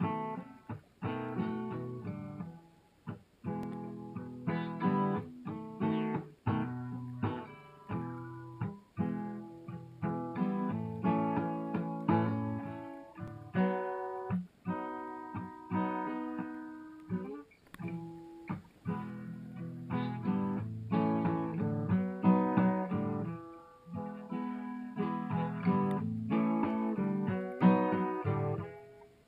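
Background music played on a plucked acoustic guitar, a steady run of picked notes and chords.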